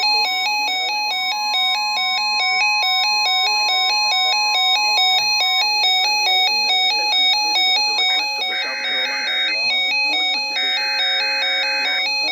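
Electronic background music of quickly alternating tones, with a steady high tone under it that stops about halfway. Past the middle come two bursts, about a second each and a second apart, of Emergency Alert System SAME header data tones: the rasping digital burst that opens an EAS alert message.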